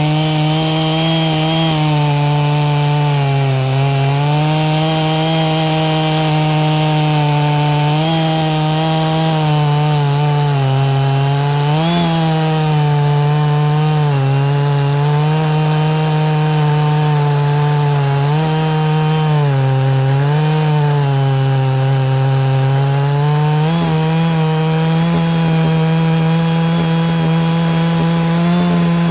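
Two-stroke chainsaw held at full throttle while cutting through a large round log. Its engine pitch sags repeatedly as the chain loads up in the cut, then picks back up. It runs steadier and higher over the last few seconds.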